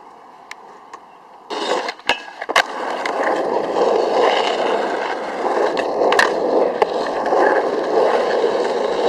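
Skateboard: quiet at first, then about one and a half seconds in a board hits the ground with a couple of sharp clacks and the wheels roll on steadily, with a few more clicks along the way.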